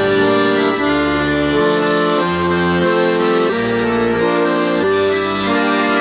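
Accordion playing a slow melody of held chords in an instrumental passage of a song, the notes changing every half second to a second.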